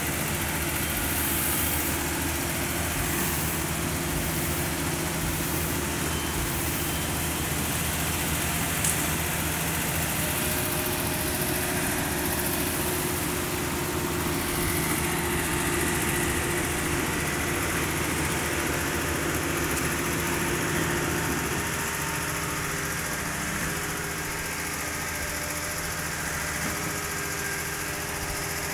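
An engine running steadily with a low, even hum, easing slightly in level about three quarters of the way in.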